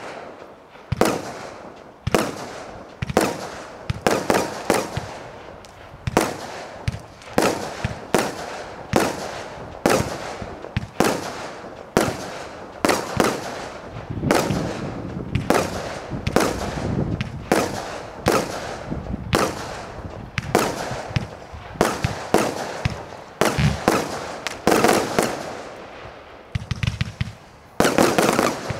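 Zeus Fireworks Icon 209-shot compound firework cake firing: a steady run of sharp shots and air bursts at roughly two a second. Near the end comes a quick rapid-fire volley.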